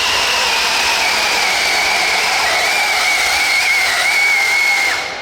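RC pulling model's motor and drivetrain whining at full power under the load of the sled, with a steady hiss. The whine sags slightly in pitch as the load builds, then cuts off sharply near the end as the pull stops.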